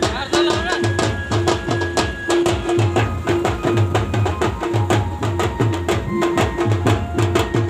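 Amplified live band music: an electronic drum pad struck with sticks together with a keyboard. It plays a fast, steady beat of sharp percussion hits over repeated deep bass-drum pulses.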